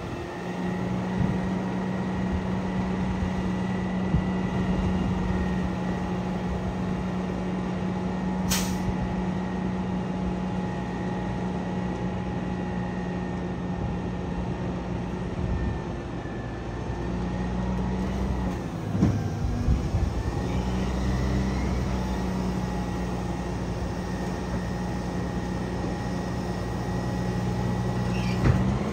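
Autocar ACX Heil Half/Pack front-end loader garbage truck's CNG engine running steadily with a low hum and a steady high whine. There is a short sharp click about eight seconds in and a brief knock and change in the engine sound around nineteen seconds.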